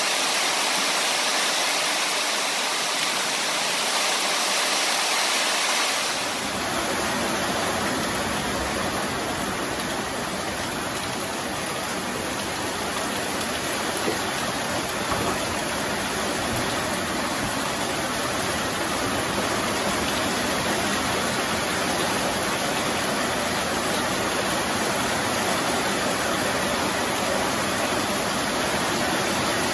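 Heavy rain falling steadily, a dense even hiss; about six seconds in it becomes fuller and deeper.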